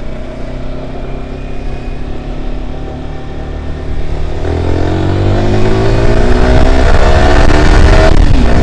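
Kawasaki ZX-10R's inline-four engine through its stock exhaust, running steadily while riding, then accelerating from about halfway in with the revs climbing and getting louder, before the pitch drops back near the end.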